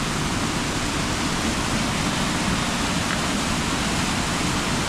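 Waterfall rushing through a narrow rock chute on a swift river: a loud, steady rush of falling water.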